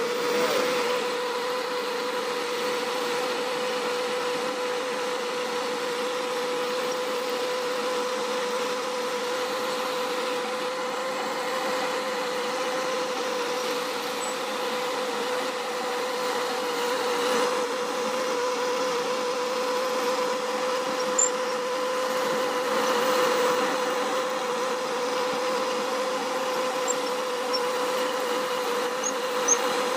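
Benchtop CNC milling machine's spindle running as its end mill cuts a circular pocket in wood, mixed with a shop vacuum drawing away the chips: a steady hum with a constant tone. Two brief sharp ticks come in the last third.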